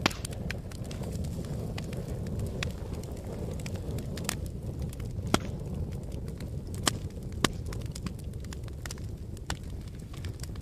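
Wood fire crackling: a steady low rush of burning flames with frequent sharp snaps and pops. The loudest pops come just after the start and a few more around the middle.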